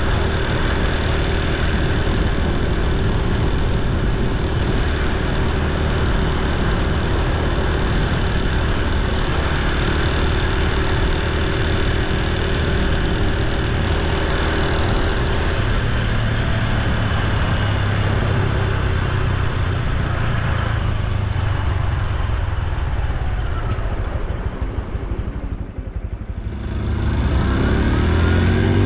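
Honda Super Cub C125's single-cylinder engine and exhaust running under way, over a steady rush of wind. About 24 seconds in it eases off and quietens, then near the end it accelerates again with a rising pitch.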